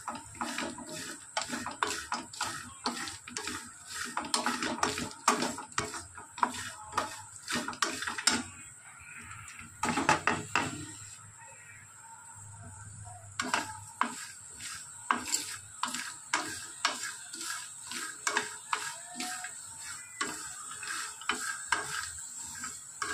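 Wooden spatula stirring and scraping dry-roasting peanuts, coconut slices, cashews and sesame seeds around a steel kadai: a run of irregular scrapes and rattles, with a quieter pause of a few seconds about halfway through.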